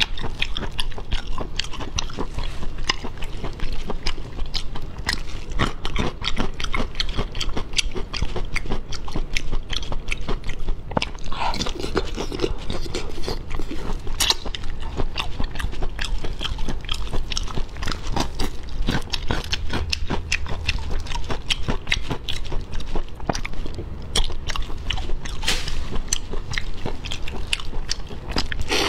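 Close-up chewing and biting of raw-marinated black tiger prawns: wet chewing with crunching and crackling, a dense run of small clicks throughout.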